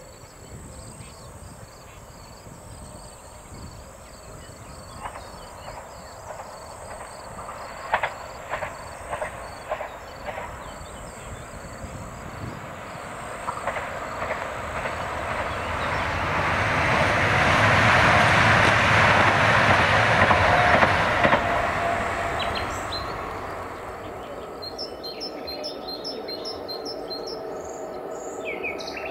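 A passenger multiple-unit train approaches and passes: a rushing of wheels on rail that builds to a loud peak about two-thirds of the way through, then fades. A few sharp clicks come before the peak, and birds chirp at the start and again near the end.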